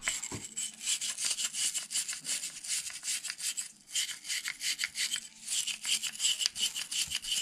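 Small wire brush scrubbing the inside of a lawnmower carburettor float bowl in quick, scratchy back-and-forth strokes, with two short pauses. It is cleaning dirt and light rust out of the bowl.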